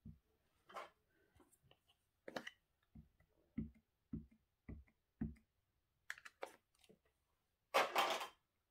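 Rubber stamp being tapped onto a Memento black ink pad: five soft taps about every half second, among small clicks of handling. A louder, brief rustle comes near the end.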